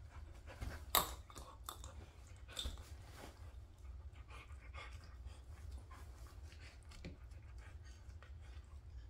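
A dog biting and chewing at a hanging chew toy, with short snaps and clicks of its jaws and teeth and some panting. The sharpest snap comes about a second in.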